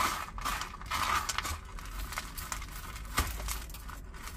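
Gritty potting mix crumbling off a succulent's root ball and pattering onto a tray as long metal tweezers rake through it, with small scratches and clicks and one sharp click a little after three seconds in.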